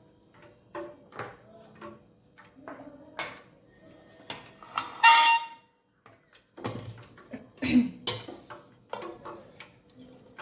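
Irregular clinks and knocks of a wire whisk against a steel bowl as a flour (maida) batter is mixed, with one loud ringing metal clang about five seconds in.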